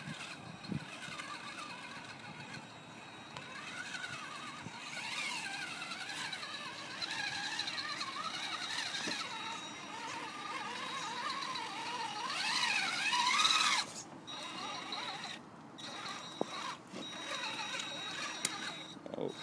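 Traxxas Summit RC rock crawler's electric motor and geared drivetrain whining in low range, the pitch rising and falling with the throttle as it crawls over rocks. It is loudest about twelve seconds in and cuts off suddenly soon after.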